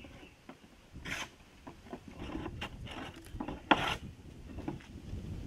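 Hand plane shaving a wooden plank: two strong strokes, about a second in and just before the four-second mark, with lighter scrapes and small knocks of the tool on the board between them.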